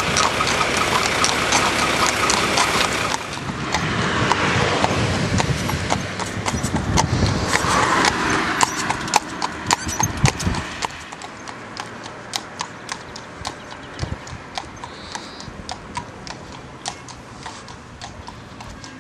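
Horses' shod hooves clip-clopping on an asphalt road at a walk, a steady train of sharp clicks. Road traffic noise sits under the hooves for the first half, then drops away, leaving the hoof beats clearer.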